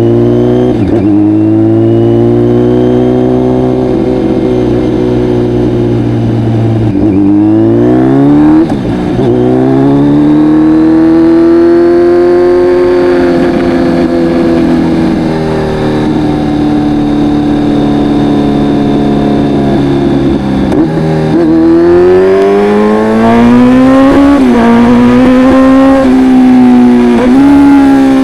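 A Kawasaki Z900's inline-four engine running through an Akrapovic full exhaust while being ridden. Its pitch climbs and falls repeatedly as the bike accelerates and eases off, with short sharp dips in pitch near the end.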